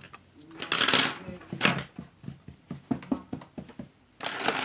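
Paper-craft handling sounds: short rustling swishes of paper about a second in, near two seconds and near the end, with a string of small ticks and taps in between.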